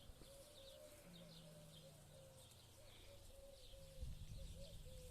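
Near silence, with faint birds chirping in the background and a low steady hum.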